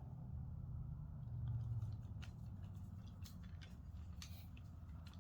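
Irregular light clicks and taps of a screw and monitor-stand parts being handled while a screw is tried in the stand, over a steady low hum.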